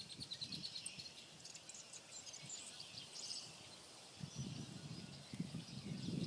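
Faint outdoor ambience with scattered short, high-pitched chirping calls. Low rustling and handling noise comes in from about four seconds in.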